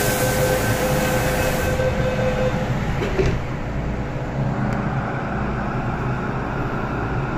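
MTR M-train (Metro-Cammell electric multiple unit) pulling away from an underground station: a hiss during the first couple of seconds, a click about three seconds in, then the steady rumble of the motors and wheels as it gets under way.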